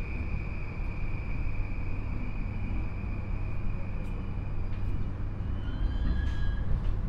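JR E235 series train's Mitsubishi SiC VVVF inverter giving a steady high-pitched whine under regenerative braking over the low rumble of the running gear, the whine fading out within the first few seconds as the train slows to its stop. A few brief higher tones sound about six seconds in.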